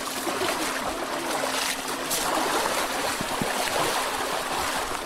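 Muddy water splashing and sloshing as young African elephants wade and stamp through a shallow water hole, with short sharp splashes now and then over a steady watery rush.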